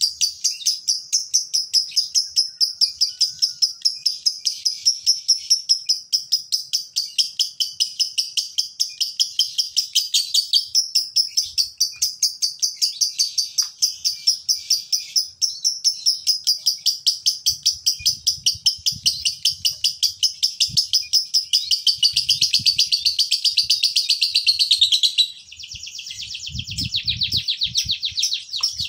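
Male Fischer's lovebird chattering in a long, fast, even trill of high notes, about five or more a second: the 'ngekek' call kept by lovebird keepers. The trill breaks off briefly near the end and picks up again faster.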